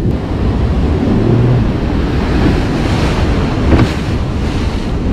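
Breaking surf washing around a small boat as it pushes out through the waves, with wind buffeting the microphone. Near the end, a wave hits the bow and throws up a splash of spray.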